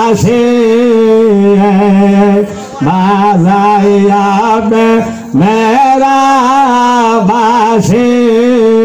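A man singing a naat, a devotional song in praise of the Prophet, solo into a handheld microphone. He holds long, wavering notes and breaks twice for a short breath.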